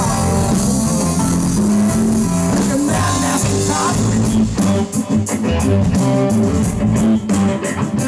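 Live electric blues-rock band playing: Strat-style electric guitar over a drum kit and low bass notes. From about four seconds in, sharp drum strikes come through in a steady beat, several a second.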